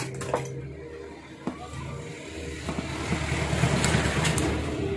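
A motor vehicle's engine rumbling and growing louder, loudest near the end, with a few sharp clicks in the first second and a half.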